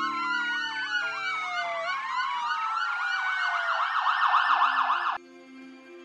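Several emergency vehicle sirens sounding at once, some in a slow rising-and-falling wail and others in a fast yelp, over a low sustained music drone. The sirens cut off abruptly about five seconds in, leaving only the soft ambient music.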